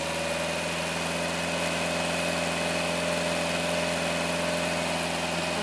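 A 1960 MGA's freshly rebuilt four-cylinder engine idles steadily, running for the first time in decades.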